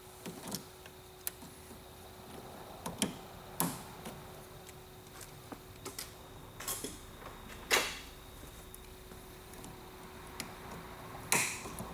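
Irregular light clicks and knocks of tools and parts being handled, two of them louder near the middle and near the end, over a faint steady hum.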